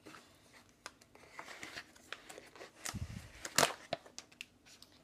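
Glossy plastic packet being crinkled and torn open by hand: a run of sharp crackles, the loudest about three and a half seconds in, with a dull bump just before it.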